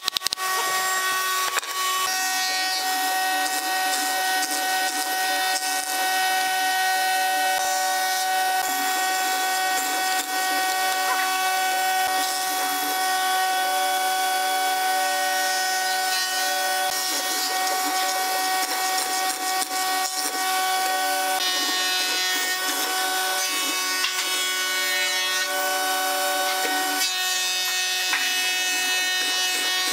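A hollow-chisel mortiser runs with a steady motor whine while its square chisel and auger bore into pine, with a rasping cutting noise. At the very start, a few quick mallet taps on a hand chisel.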